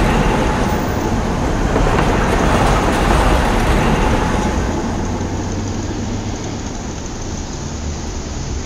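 City street traffic noise: a steady rumble and hiss of passing vehicles that grows quieter about halfway through.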